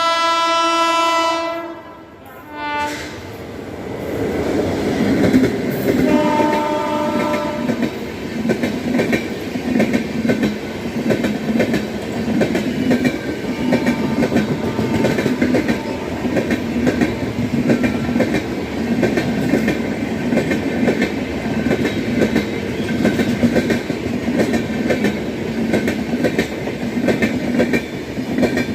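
Train horn sounding for about a second and a half, a short blast near three seconds in and another about six seconds in, then the steady clickety-clack of an Indian Railways express train's wheels running over the rails.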